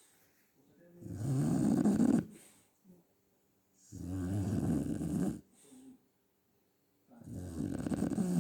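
A five-month-old Shar-Pei puppy snoring in its sleep: three long, rattling snores about three seconds apart, the last running on past the end.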